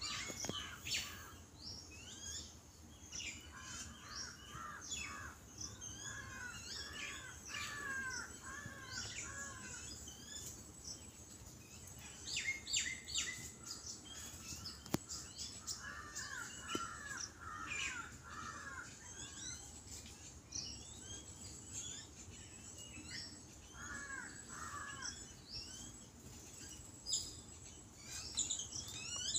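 A flock of babblers calling: harsh, rapid chattering in several bursts, with quieter stretches of scattered calls between them.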